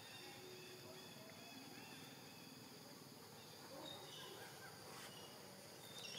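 Faint forest ambience with steady, high insect chirring.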